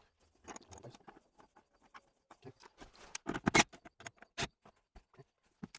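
Irregular clicks and knocks of hand tools on metal as a ground cable terminal is bolted down to bare body metal, loudest in a quick cluster about three and a half seconds in.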